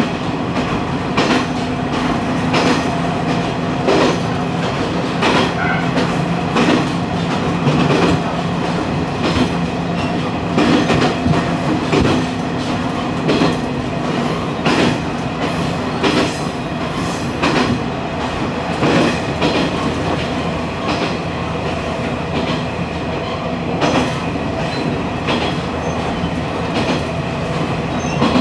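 Diesel railcar running along the line, heard from on board: wheels clicking over rail joints every second or so, often in pairs. Under them is a steady low engine hum that drops away about halfway through.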